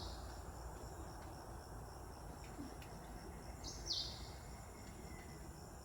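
Forest insects giving a steady high, thin drone. About four seconds in, a short high call falls sharply in pitch.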